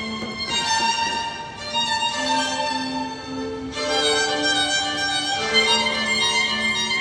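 Background music: a violin playing a slow melody of long held notes.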